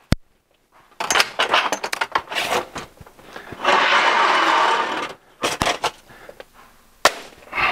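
A cut sheet of thin aluminum trim coil being handled against a siding brake: the sheet rattles and flexes with irregular clicks, then slides with a rough scraping sound for about a second and a half in the middle, followed by a few sharp clacks.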